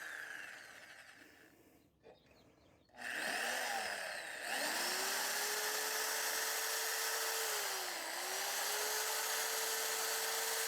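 Electric drill motor trailing off, then after a short gap spinning up and running with a steady whine while drilling out a broken hardened-steel bolt. The pitch dips briefly about eight seconds in as the bit loads up.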